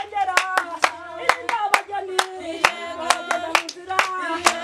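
A group of women singing together while clapping their hands in a steady rhythm, about three claps a second.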